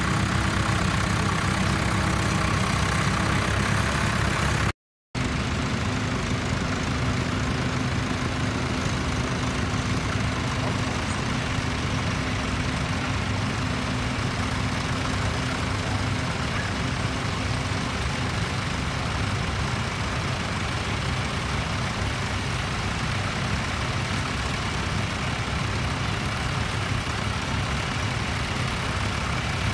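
Tractor engine running steadily, with a brief cut to silence about five seconds in, followed by another steady engine run.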